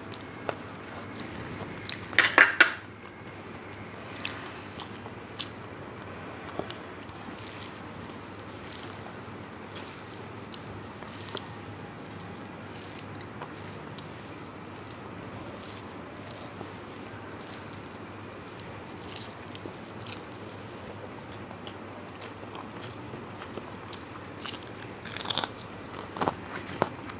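A person eating rice and curry close to the microphone: chewing and mouth clicks over a steady background hiss. There is a brief louder clatter about two seconds in and a few more sharp clicks near the end.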